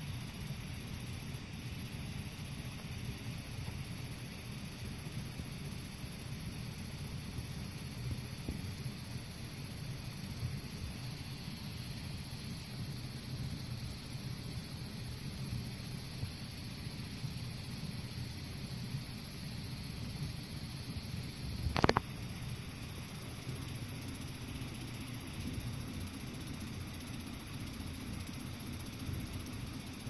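Steady low rumble of an air-conditioner condenser unit running, with a brief sharp knock about two-thirds of the way through.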